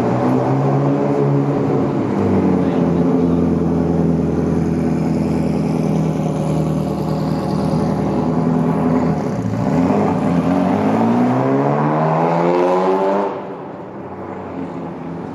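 Ferrari F40's twin-turbo V8 running at a steady pitch, then accelerating with a rising pitch for about three seconds before the sound cuts off suddenly near the end.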